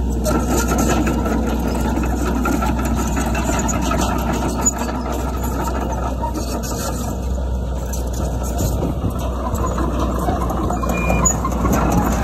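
Diesel engine of heavy earthmoving equipment running steadily.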